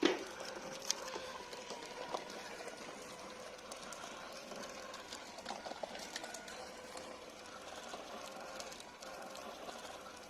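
Small DC motor of a cardboard model road roller running steadily, with a constant whine and scattered light clicks and rattles. A sharp click comes right at the start.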